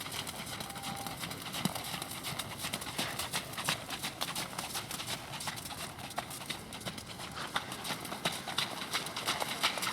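Hoofbeats of a ridden Thoroughbred horse on arena footing: a continuing run of short, sharp clicks over a steady hiss.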